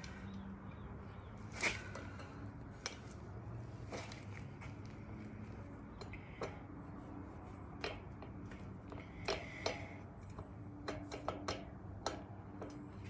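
Scattered clicks and knocks of a wrench and metal bike parts being handled as the BMX wheel's axle nuts are loosened, with a small cluster of clicks near the end, over a faint low hum.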